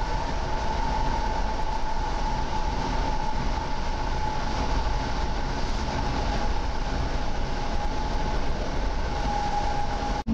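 EN57 electric multiple unit heard from on board while running: a steady rumble of running noise with a constant whine held at one pitch.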